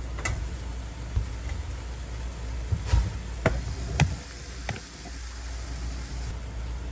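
About six light knocks and clicks, the loudest about three to four seconds in, over a low steady hum.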